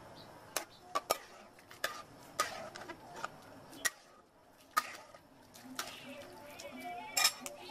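Metal spatula clattering and scraping against an aluminium pot while scooping boiled shrimp out of the water into a plastic colander: about ten sharp knocks spread irregularly, the loudest near the end.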